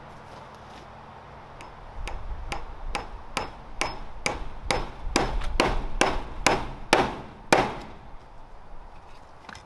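A hammer striking repeatedly in a steady rhythm of about two blows a second, the blows growing louder toward the end, then stopping.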